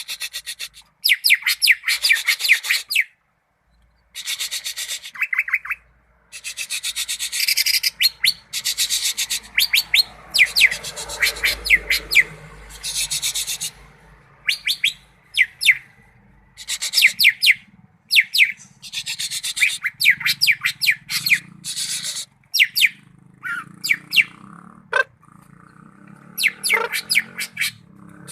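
Cucak ijo (greater green leafbird) singing loudly in phrases of rapid high trills and quick falling whistled notes. Each phrase lasts a second or two, with short pauses between them.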